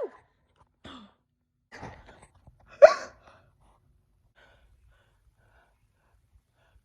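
A woman's gasps and breaths while she fights to hold back a sneeze: a faint breath about a second in, another near two seconds, and one short, sharp, loud gasp about three seconds in.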